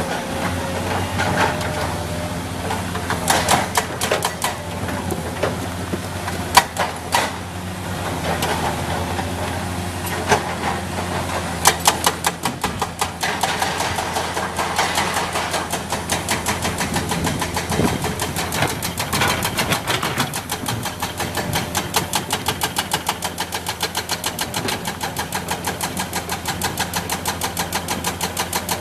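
Heavy diesel engine of a Komatsu PC200 excavator running steadily, with a few sharp knocks and clatters in the first half. After about twelve seconds it settles into an even, rapid pulsing beat, about five a second.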